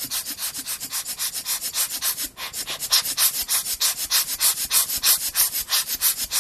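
Quick back-and-forth rubbing strokes, about seven a second, a scratchy hiss with a brief pause about two seconds in.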